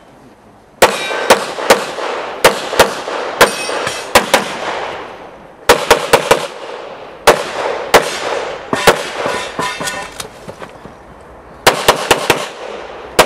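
Handgun shots fired rapidly in quick pairs and strings, about twenty in all, each with a short ringing tail. A pause of over a second comes near the end, then a last fast string.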